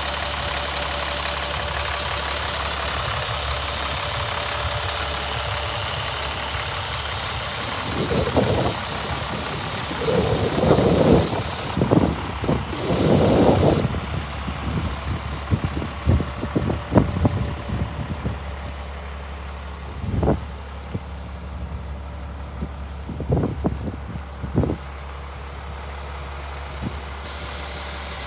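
Diesel engine of a Freightliner M2 box truck idling steadily, with a thin high whine that drops out partway through and returns near the end. Irregular scuffing noises come in from about eight seconds on.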